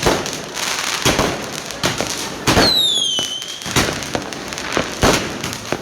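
Fireworks going off: repeated bangs and crackling, with a whistle falling in pitch about two and a half seconds in.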